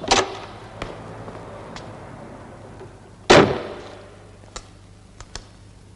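Two sharp knocks with a short ringing tail, the loudest about three seconds in, and a few faint clicks between them.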